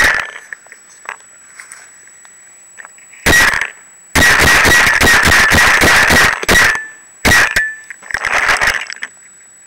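Paintball marker firing in rapid bursts, heard right at the gun: a short burst about three seconds in, a longer burst of about two seconds just after, then two more short bursts near the end.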